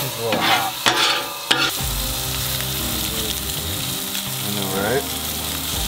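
Salmon burger patties sizzling as they fry on a hot flat-top griddle: a steady hiss, with a few sharp short sounds in the first second and a half.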